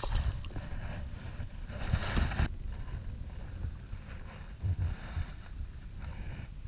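A splash as a released summer flounder hits the water beside a kayak, followed by wind buffeting the microphone and a few low thumps of handling against the kayak hull.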